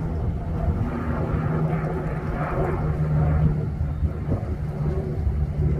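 Twin-engine turboprop airliner passing overhead: a steady propeller drone with a low rumble beneath it.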